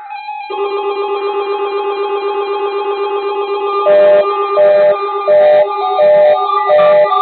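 Weather radio test alarm: a loud electronic signal of several steady tones held together, swelling up over the first second. About four seconds in, a beep joins it, repeating about every two-thirds of a second.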